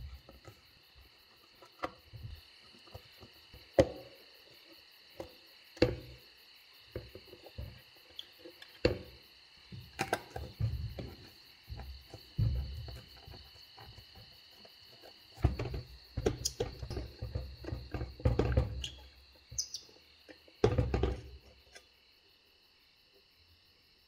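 A flathead screwdriver working rusty slotted screws out of an old corroded brass hinge: scattered sharp clicks and knocks, with several longer grinding stretches as the screws turn. A steady high cricket chirping runs underneath.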